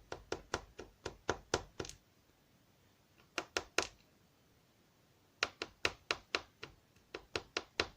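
Mul-T-Lock Integrator lock plug being tapped against a hard surface to shake its key pins out: sharp metal taps in quick runs, about nine in the first two seconds, four more around three and a half seconds in, and a longer run of about a dozen from five and a half seconds on.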